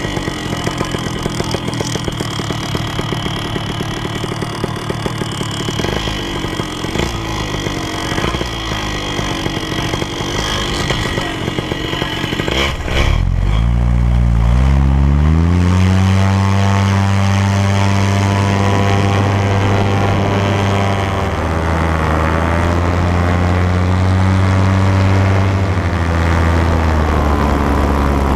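Paramotor engine and propeller running at high power. For the first half it sounds rough, mixed with wind noise. About halfway through it jumps louder, and a low engine note rises in pitch, then holds steady.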